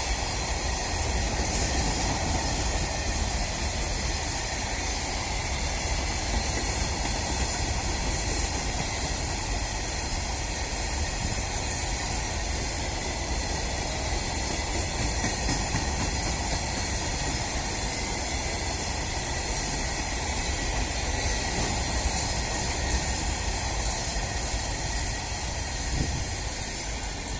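A freight train of BOXN wagons rolling past steadily, easing off slightly near the end.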